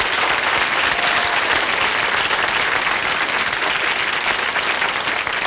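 Studio audience applauding steadily, a dense even clapping that begins to fade near the end.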